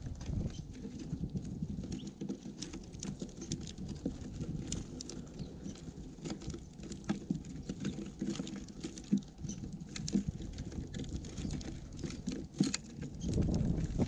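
Irregular tapping and clicking of small birds pecking at seed and hopping about on a bird feeder close to the microphone, over a low rumble.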